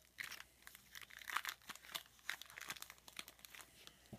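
Foil trading-card pack wrapper crinkling and tearing as it is handled and opened, a faint run of small irregular crackles.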